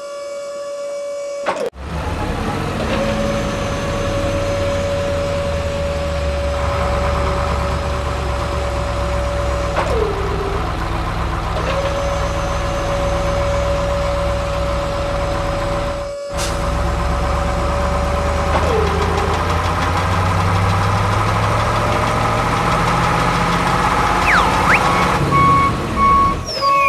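Vehicle sound effects: a low truck engine rumble under a steady high siren-like tone. The tone slides down and stops twice, then starts again, and whistle-like glides come in near the end.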